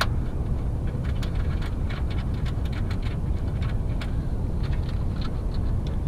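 Ratchet wrench clicking in short runs as 10 mm bolts are run in, over a steady low background rumble.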